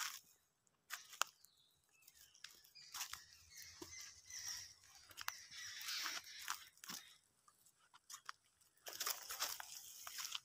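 Dry leaf litter and twigs crunching and rustling underfoot and in the undergrowth, in irregular patches with a few sharp crackles, as people move through the brush to let a large rat snake go.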